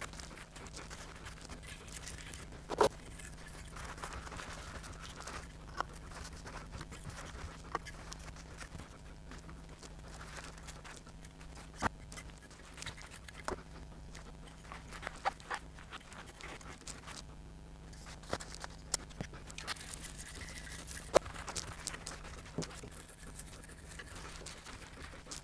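Scattered sharp clicks and light handling noises over a steady low electrical hum, with the loudest clicks about 3, 12 and 21 seconds in.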